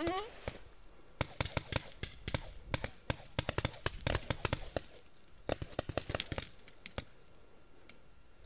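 Paintball markers firing, three bursts of rapid pops with scattered single shots between them. A short cry with falling pitch right at the start.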